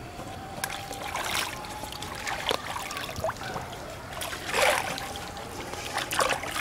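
Hand splashing and swishing pond water while rinsing arum leaves, with drips and trickles; a handful of separate splashes, the loudest about four and a half seconds in.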